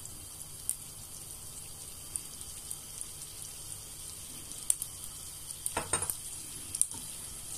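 Melted butter and molasses sizzling in a pan as they heat together, a steady faint hiss with a few light ticks and a brief louder noise about six seconds in.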